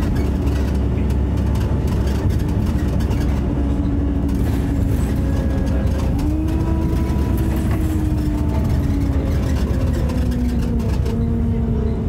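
Bus diesel engine running hard with a loud, rough thrash and a hoover-like whine. The whine rises about six seconds in, then falls away steadily toward the end as the engine eases off.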